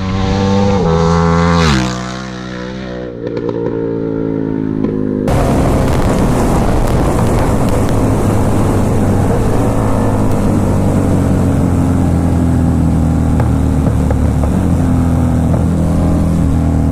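KTM 1290 Super Duke R's V-twin engine, fitted with an Austin Racing exhaust, revving up hard with rising pitch, then dropping back to a lower steady note. About five seconds in it gives way to a steady engine note at speed under loud wind rush.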